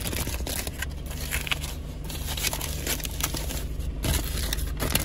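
Aluminium foil wrapper crinkling and crackling as it is pulled open around a chapati, over a steady low hum.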